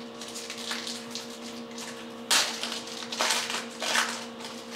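Trading cards being handled and shuffled: papery rustling and sliding, with louder swishes about two and a half, three and a half and four seconds in, over a steady low electrical hum.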